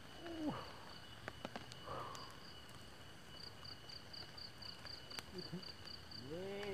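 An insect chirping in an even high pulse of about four chirps a second over a steady high drone, with a few light clicks.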